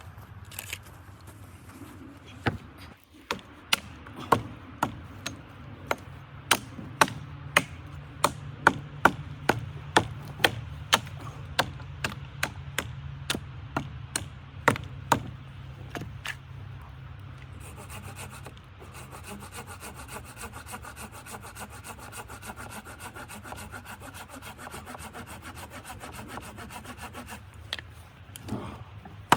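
Wood being worked by hand with a tool: a regular run of sharp strokes, about two a second, that stops about sixteen seconds in. A steadier rasping hiss follows.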